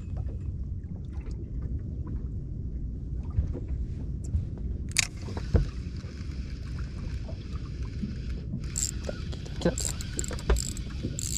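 Sounds aboard a small fishing boat at sea: a steady low rumble with scattered knocks and a sharp click about five seconds in, and short bursts of hiss near the end.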